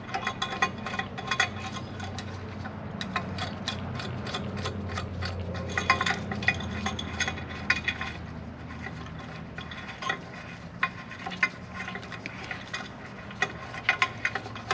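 Ratcheting wrench clicking and a nut spinning along a threaded rod, with small steel parts clinking, as a bushing press tool is backed off a gyrocopter hub bar once the new bushing is fully pressed in. A low steady hum runs underneath.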